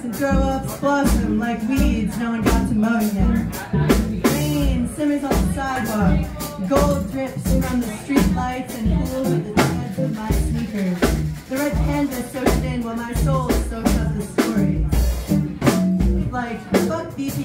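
Live small-band music: a drum kit keeps a steady beat under upright bass and electric guitar, with a lead melody gliding up and down in pitch over them.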